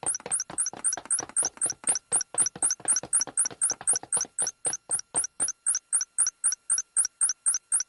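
Cartoon tracking gadget beeping fast and evenly, about six chirping beeps a second over a steady high tone, picking up the signal from a tracer badge.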